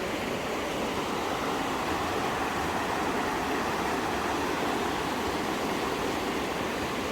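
Steady rushing of fast-flowing water from the creek and falls, an even, unbroken wash of sound.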